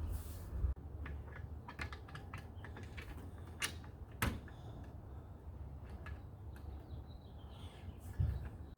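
Scattered light clicks and taps of roof-rack hardware being handled and fitted, with two sharper clicks about three and a half and four seconds in, over a low steady hum.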